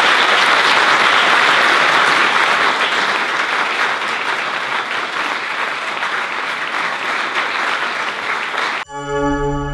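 Audience applauding, a dense steady clapping that cuts off abruptly near the end, where music with long held tones begins.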